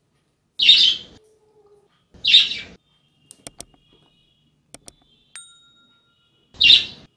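Subscribe-button animation sound effects: three short whooshes, two pairs of mouse clicks in the middle, and a bell ding just after the second pair.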